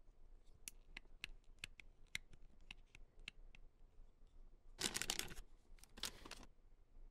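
Toy packaging being opened by hand: a string of small clicks and taps, then two short tearing rips about five and six seconds in.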